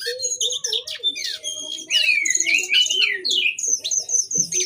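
Cincoang (jongkangan) songbird singing a fast, continuous run of high chirps and sweeping whistled slurs, the rapid-fire 'tembakan' song of a bird in full voice.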